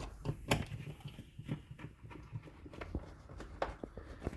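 Scattered light clicks and taps of a hand tool tightening the screws that hold down a plastic airbox.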